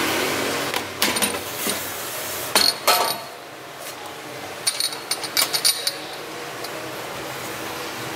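Air fryer drawer being pulled out and handled: a series of hard plastic and metal clicks and clacks. The two loudest clacks come near the middle, followed by a quick run of lighter clicks. A rushing noise fades away in the first second.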